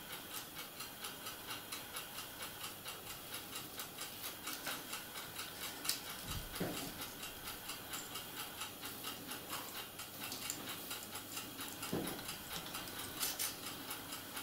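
Faint, even ticking at about three ticks a second, with a couple of soft knocks about six and twelve seconds in.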